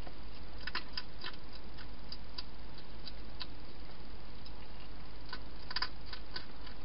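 Wild hedgehog eating from a bowl inside a plastic feeding box: irregular crunching clicks, bunched about a second in and again near the end, with scattered single ticks between.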